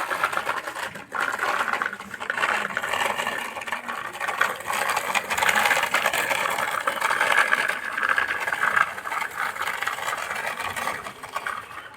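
A toy construction vehicle's small electric motor and gears whirring with a fast rattle, briefly dropping off about a second in.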